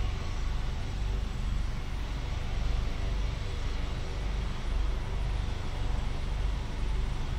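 Airbus Helicopters AS365 Dauphin, a twin-turbine helicopter, running on the ground with its main rotor turning before lift-off. It makes a steady low rotor thrum under a turbine hiss, swelling slightly in loudness now and then.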